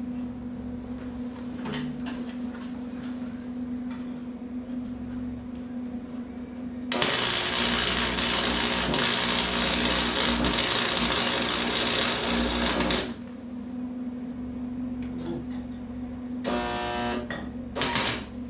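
Electric arc welder laying a weld for about six seconds, a loud steady crackling hiss that starts and stops abruptly. A steady low hum sits underneath throughout, and a brief burst of noise comes near the end.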